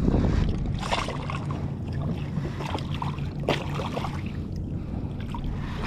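Water splashing and dripping beside a kayak hull as a striped bass is gripped by the lip and worked at the surface, with a few sharper splashes about a second in and past the middle, over a steady low rumble.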